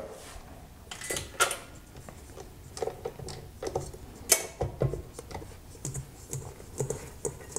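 Scattered clicks, knocks and light scraping from handling a stopped tilt-head stand mixer: the head lifted with its dough hook and a hand working the dough out of the stainless steel bowl.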